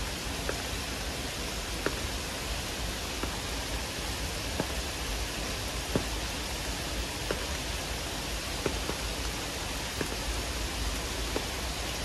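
Heavy rain falling steadily, a dense even hiss, with a sharp louder tick of a single drop about every second and a half.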